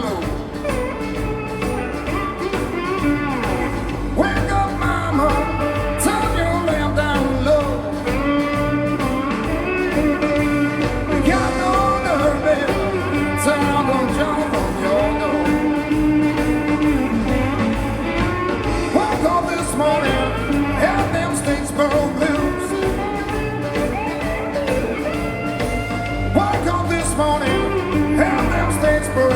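A live blues-rock band playing steadily, with electric guitar lines over the rhythm section.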